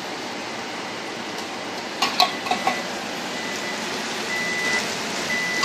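Chicken pieces sizzling in oil in a frying pan, a steady hiss. A few sharp utensil clinks come about two seconds in, and a thin high tone comes and goes in the second half.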